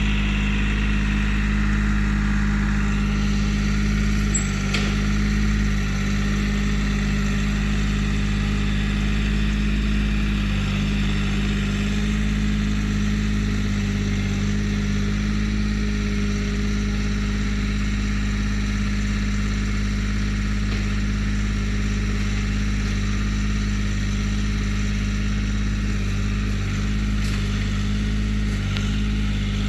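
Engine of a Vallee Big Red portable sawmill running steadily at constant speed.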